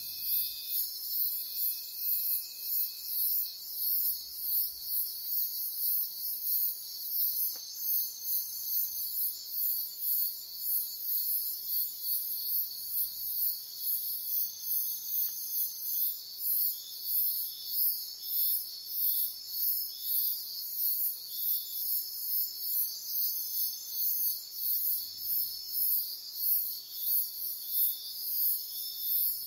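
Insect chorus: a very high, rapid rhythmic pulsing over steadier high-pitched shrill calls, continuous and unbroken.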